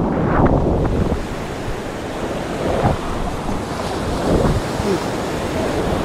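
Breaking surf and whitewater rushing around a camera held at water level, with splashy surges about half a second in, near three seconds and again past four seconds. Wind buffets the microphone.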